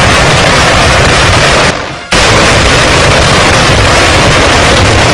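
Truck-mounted multiple rocket launchers firing a salvo: a dense, continuous, very loud rushing roar of rockets leaving the launch tubes in quick succession, dropping away briefly about two seconds in before resuming.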